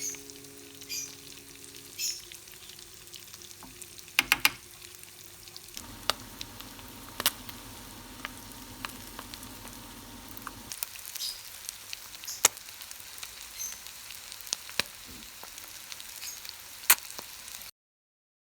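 Fat sizzling in a pan, a steady hiss scattered with small sharp crackles and pops. It cuts off suddenly about a second before the end.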